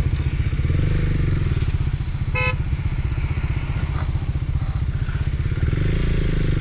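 KTM Duke 390's single-cylinder engine idling, a fast even thumping, with the other motorcycles running close by. A short horn beep comes about two and a half seconds in.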